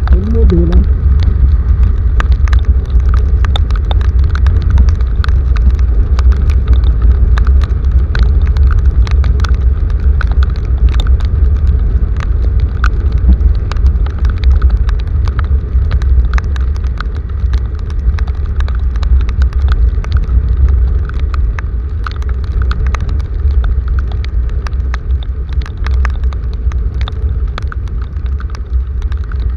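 Heavy rain, with many sharp drop hits close to the microphone over a steady deep rumble.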